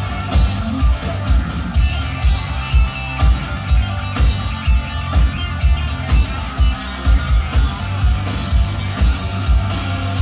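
Hard rock band playing live: electric guitar and bass guitar over a steady kick-drum beat.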